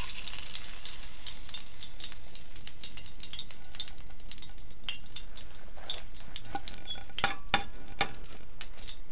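Hot cooking oil sizzling and crackling steadily in a frying pan, from deep-frying eggplant fritters, with a few sharper clicks near the end.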